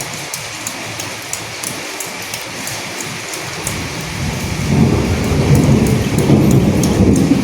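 Steady rain with scattered sharp drips, and a low rumble of thunder that builds about halfway through and is loudest near the end.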